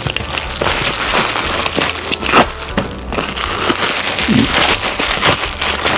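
Small clear plastic bag crinkling and crackling in the hands as it is cut open with a utility knife and pulled apart, a steady run of quick crackles and ticks.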